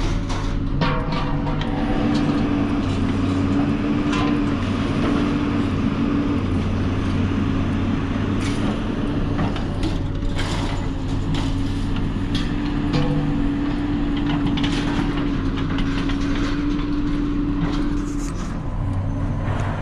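Truck engine idling steadily, with scattered clanks and knocks over it.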